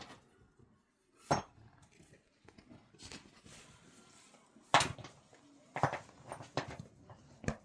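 Cookware being handled: about six sharp, irregular clinks and knocks, the loudest near the middle.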